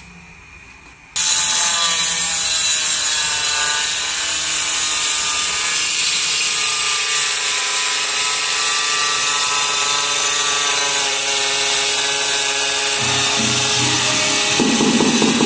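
Handheld angle grinder cutting a floor tile: a loud, steady motor whine with the grinding of the blade through the tile. It starts abruptly about a second in and runs without a break.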